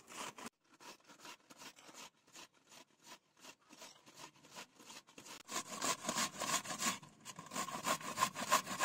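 Raw minced chicken being mixed in a bowl with cornflour and spices: a series of short mixing strokes, sparse and faint at first, then quicker and louder from about five and a half seconds in.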